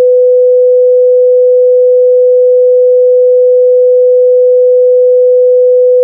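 Pulse oximeter / patient monitor sounding one continuous, unbroken mid-pitched tone instead of separate pulse beeps: the flatline tone that signals no pulse is detected.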